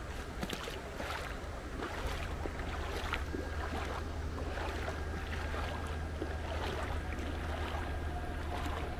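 Steady rushing of stream water at a spillway, a continuous deep rumble, with irregular light knocks of footsteps as someone walks.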